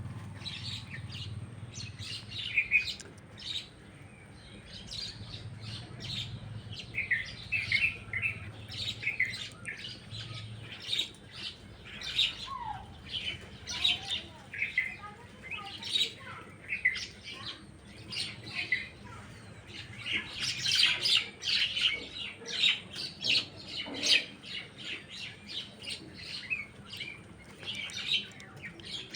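Small birds chirping and squawking in quick, short high calls, one after another, busiest a little past the middle.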